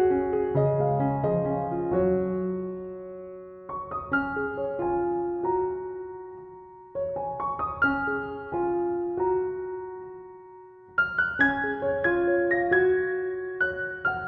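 Soft background piano music: gentle phrases of struck notes that die away, each phrase starting afresh every few seconds.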